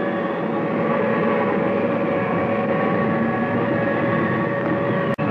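Steady rushing wind noise of a tornado, with a faint steady hum of a few tones running under it. It drops out for an instant near the end.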